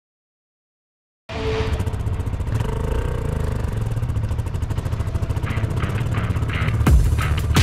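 Silent for about the first second, then the BMW F900R's parallel-twin engine running steadily under way off-road, with a few heavy thumps near the end.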